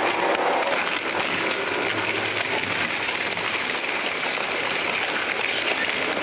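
Industrial shredder's toothed cutter shafts tearing into a burned-out car body: a steady, dense crackling and crunching of metal.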